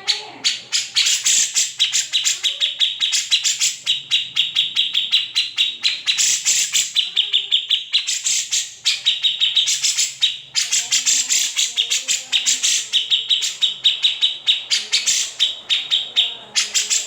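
Grey-cheeked bulbul (cucak jenggot) singing a fast, almost unbroken run of short, high notes.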